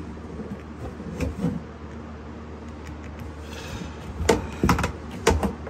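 Several sharp plastic knocks and clacks in the last couple of seconds as PEX pipe and tubing are yanked up against a plastic soap tank, over a steady low hum.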